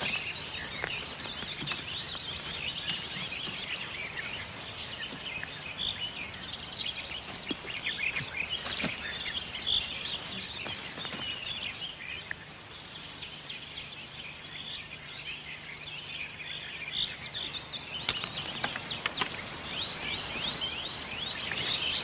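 Woodland birdsong: many small birds chirping and trilling at once in a dense, continuous high chorus. A few brief sharp snaps or knocks stand out, about nine seconds in and again later.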